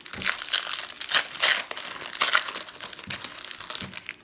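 A Topps Chrome trading-card pack wrapper being crinkled and torn open: a dense crinkling crackle, loudest about a second and a half in.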